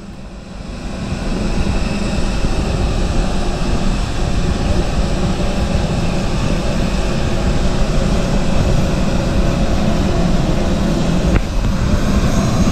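Parked Airbus A319's auxiliary power unit running: a steady, loud rushing noise with a faint whine, growing louder about a second in.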